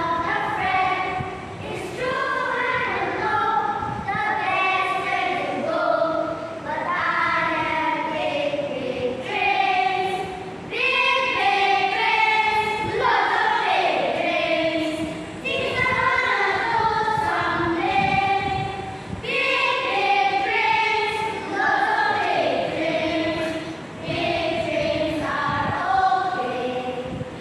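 A group of children singing together in a choir, in short phrases with brief breaks between them.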